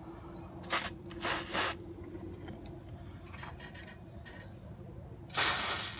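Aerosol grease sprayed onto a car hood hinge in three short hissing bursts: two brief ones about a second in and a longer one near the end.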